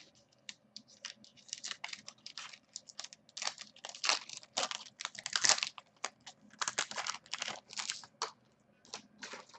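Irregular crinkling and rustling of foil trading-card pack wrappers and cards being handled, a quick uneven run of crackles, loudest about four to six seconds in.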